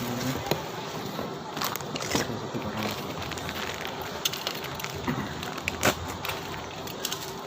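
Rustling and crinkling of packaging being handled, with scattered sharp clicks and knocks; the loudest click comes near the end.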